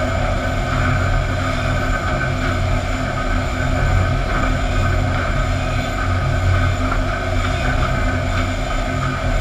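Steady drone of sawmill machinery: the motors and chain conveyors of a fence-board line running, with a strong low hum and several steady tones above it.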